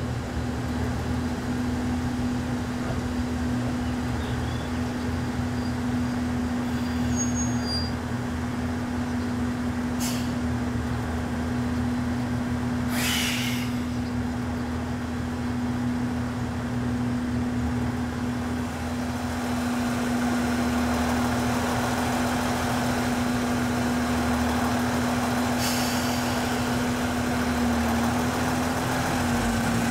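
Trains idling at a station: a steady engine hum with one steady tone. There is a sharp click about ten seconds in, a short hiss of air about three seconds later, and a fainter hiss near the end.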